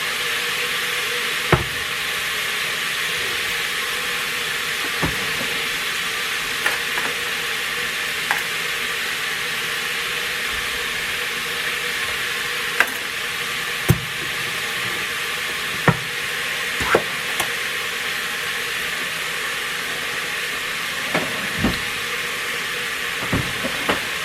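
Ground beef sizzling steadily as it browns in a Presto electric kettle. Short, sharp knocks and clicks come every few seconds over the sizzle.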